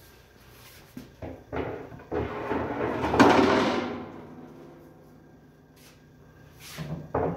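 A few light knocks, then a wire storage basket scraping and rattling as it slides out of a wooden cabinet, loudest about three seconds in. Another knock near the end.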